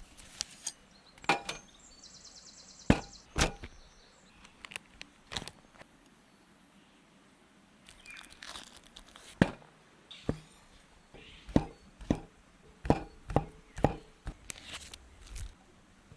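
Irregular sharp wooden knocks and snaps, typical of hands-on camp cooking preparation with a knife, board and sticks. They come unevenly at first, then in a quicker run of hits in the last few seconds.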